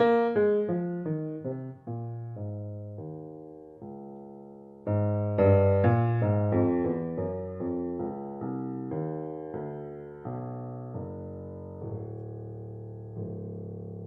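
C. Bechstein grand piano playing a slow closing phrase of single struck notes and chords, each left to ring and decay, with a louder phrase about five seconds in; near the end a final chord is struck and rings out, fading away.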